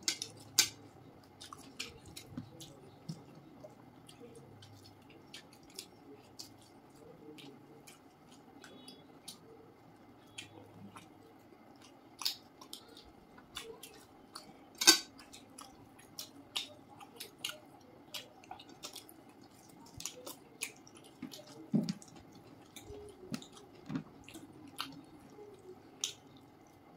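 Two people eating rice, fish and chicken curry by hand: wet chewing and mouth smacks with irregular sharp clicks, a few of them louder.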